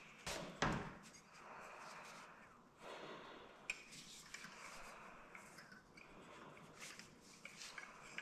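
Quiet work-handling sounds: a couple of light clicks near the start, then soft scraping and scattered small ticks.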